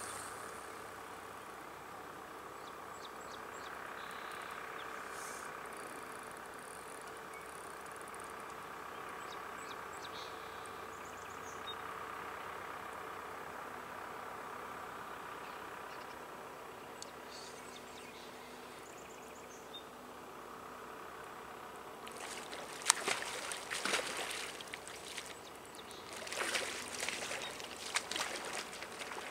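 Steady rush of river water. From about two-thirds of the way in, a hooked sturgeon thrashes at the surface, making irregular splashes.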